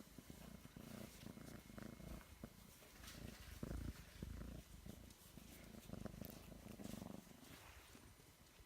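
F2 Savannah kitten purring, a faint, low, rhythmic rumble.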